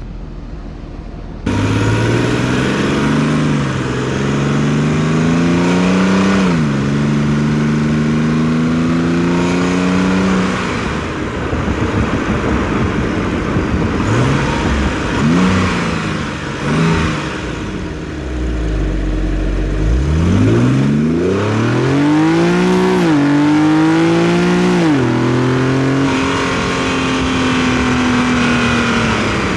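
Infiniti G37 sedan's V6 on its stock exhaust, picked up by microphones in the engine bay and at the rear bumper, pulling through the gears. The engine note climbs and drops back at each upshift several times, eases off around the middle, and settles to a steady cruise near the end.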